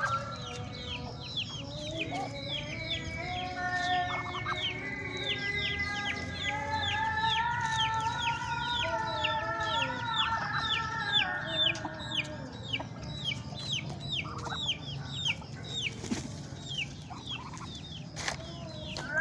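Backyard chickens calling: a long run of short falling peeps, about three a second, over longer drawn-out wavering calls.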